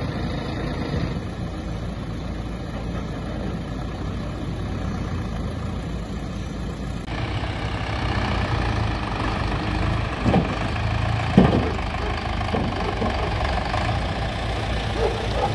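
Wheeled tractor's diesel engine running steadily as the tractor drives up the ramp onto a low-bed tow truck trailer. Two sharp knocks come a little past the middle, the second the loudest sound.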